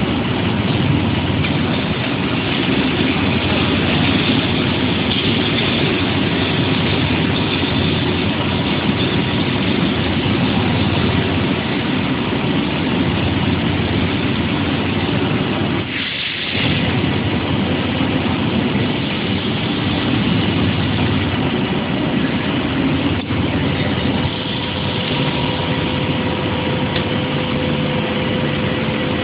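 Automatic pipe seam welding machine at work, its welding arc running along the seam. It makes a loud, steady hiss and hum, with a brief dip about halfway through.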